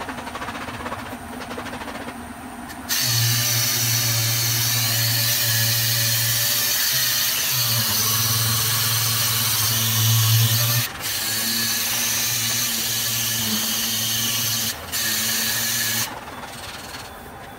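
Pneumatic random-orbital sander running against a car door's steel panel, sanding off paint down to bare metal to prepare it for body filler. It starts a few seconds in as a steady hum with an air hiss, cuts out briefly twice, and stops shortly before the end.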